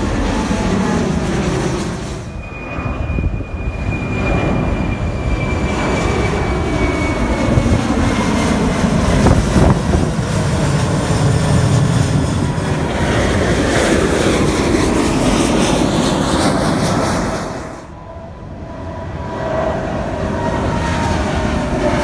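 Jet engines of large airliners passing overhead: a loud, steady rush with whining tones that slowly fall in pitch as each plane goes by. The sound dips briefly twice, about two seconds in and near the end, as one plane gives way to the next.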